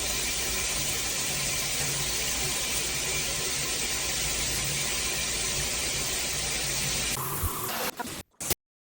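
Water spraying steadily from a filtered shower head, an even hiss. About seven seconds in the sound changes and breaks up, then cuts off abruptly.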